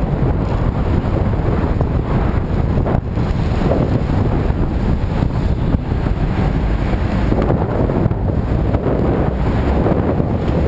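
Steady wind rush on the microphone of a camera on a moving bicycle, over the rumble of city traffic.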